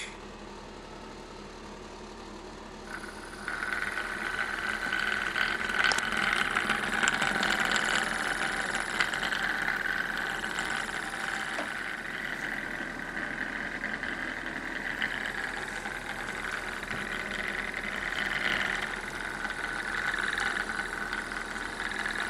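Homemade free-piston Stirling engine with a linear generator running, a steady rattling hum that comes in about three and a half seconds in. It runs under load, powering a panel of LEDs.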